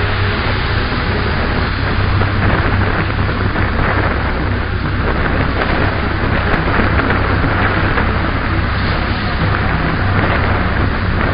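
Wind blowing across the microphone: a steady, loud rush with a constant low rumble underneath.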